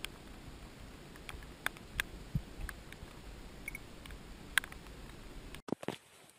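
Light rain pattering steadily, with scattered sharp ticks of single drops striking close by. About five and a half seconds in, the rain noise cuts off suddenly and a few soft handling thumps follow.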